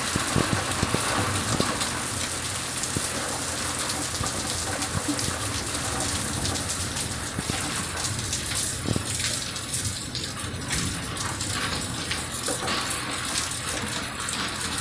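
Heavy monsoon rain pouring steadily, with single drops striking close by. The hiss thins and drops a little about halfway through.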